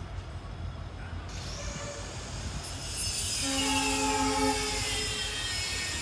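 WDP-4 diesel-electric locomotive sounding its horn once, a chord of steady tones lasting about a second and a half, a little past the middle, over the steady low rumble of its engine as it departs. A high whine sliding down in pitch runs through the second half.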